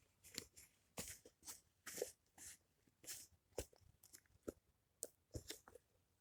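Irregular close-up clicks and crunches, about a dozen over six seconds, like small objects being handled.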